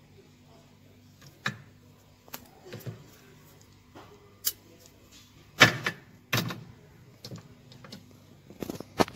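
Fishing reels being picked up and handled on a glass display shelf: a scatter of sharp clicks and knocks of hard parts against each other and the glass, the loudest a pair about halfway through and a quick cluster near the end, over a faint steady hum.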